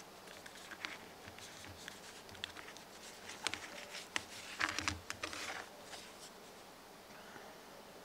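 Hands handling insulated wires and heat-shrink tubing on a wooden workbench: light clicks, scrapes and rustling, with a brief busier patch a little past the middle.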